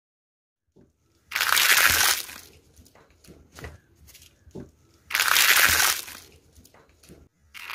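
Paper cupcake liners crinkling and crushing under a rolling car tyre. Two loud spells of crunching, about a second and a half in and again about five seconds in, with a few small crackles between them.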